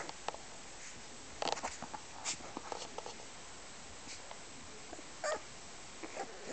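Saluki puppies giving a few brief, high whimpering squeaks amid soft shuffling and rustling in their bedding; the loudest is a single short squeak about five seconds in.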